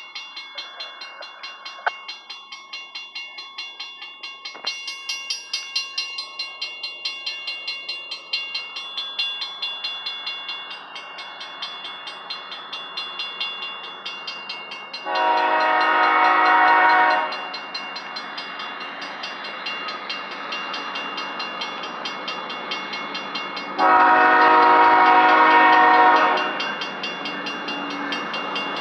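Diesel freight train with a regular rhythmic clicking of wheels on the rails. Two long blasts of the lead locomotive's multi-chime air horn come about halfway through and again near the end.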